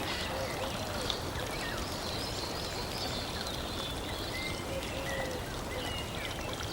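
Steady rushing of flowing water, with scattered short bird chirps over it.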